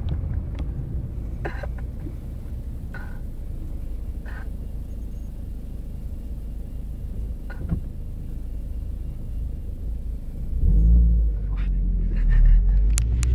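A man snoring in a moving car's cabin, over a steady low rumble of road noise, with two louder, deeper swells near the end.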